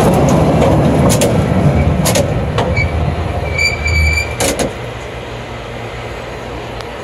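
Cable car running along its rails: a loud low rumble with several sharp clicks and knocks, and a short high squeal about four seconds in. Just before five seconds the rumble drops away to a quieter, steady running sound.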